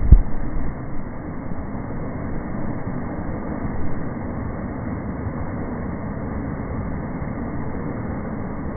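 Ocean surf breaking and churning against a black lava-rock shoreline, a steady rushing rumble, with a low thump just at the start.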